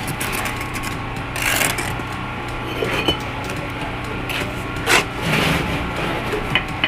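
Bricklaying work: a few short scrapes and knocks of a trowel on brick and mortar, the sharpest about five seconds in, over a steady low hum.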